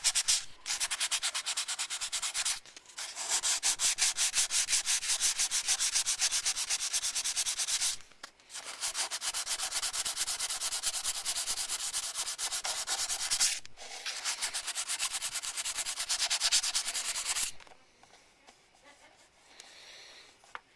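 Fine-grit (600–800) sandpaper rubbed in quick back-and-forth strokes over a painted plastic model part, sanding out a spot where the paint stretched. The strokes come in long runs with brief pauses and stop a few seconds before the end.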